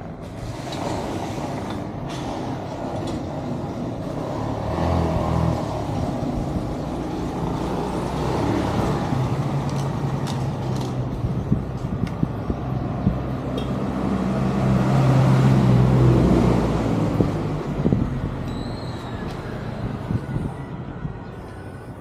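A vehicle engine running, with a low rumble that swells to its loudest about two-thirds of the way through and then eases off.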